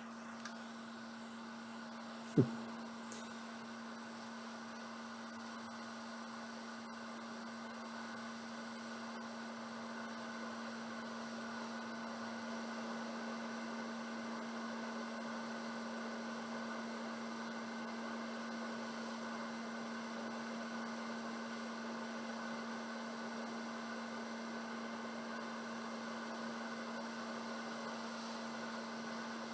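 Hot air rework station blowing on a logic board chip to reflow its solder: a steady hum with an even airflow hiss, growing slightly louder partway through. A single sharp click about two seconds in.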